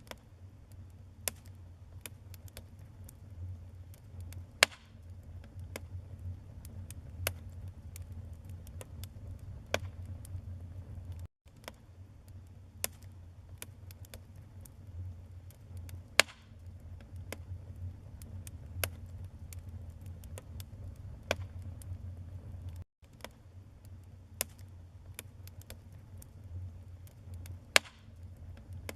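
Wood fire crackling: irregular sharp pops and snaps, a few much louder than the rest, over a steady low rumble. The sound cuts out twice for a split second.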